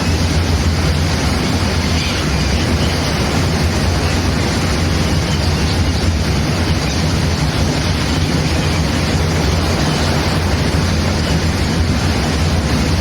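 Loud, steady rush of sea waves with wind rumbling on the microphone.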